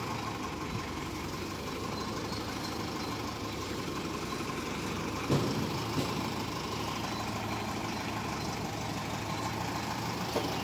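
Truck engine idling steadily, with one short knock about five seconds in.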